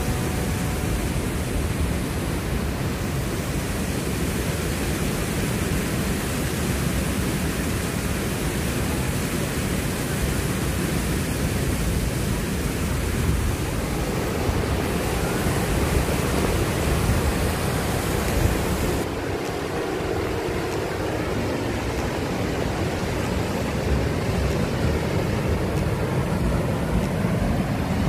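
Steady rush of the River Tees pouring over Low Force waterfall, an even wash of water noise. About two-thirds of the way in, the higher hiss drops away abruptly.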